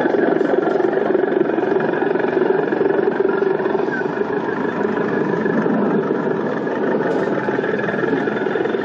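Steady idling engine sound, most likely the sound unit of the camouflaged model armoured-train locomotive running its diesel-engine idle.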